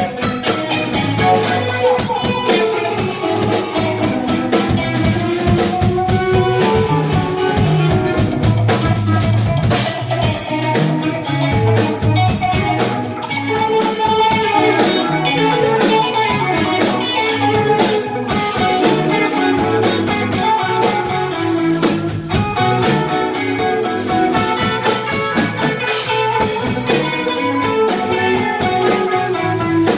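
Live rock band playing loud, with several electric guitars over a drum kit.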